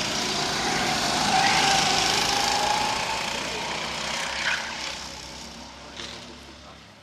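Go-kart engines running on the track, a steady motor note that swells to its loudest about two seconds in and then fades away as the karts move off, with a couple of light clicks near the end.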